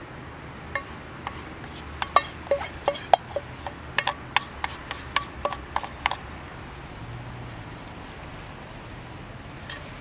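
Metal spoon clinking and scraping against a metal cooker or dish: a quick run of light, slightly ringing taps from about one to six seconds in, then one more tap near the end.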